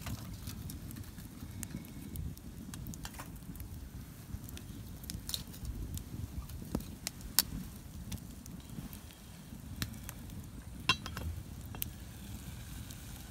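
Campfire burning with a steady low rumble and scattered sharp crackles and pops from the burning wood.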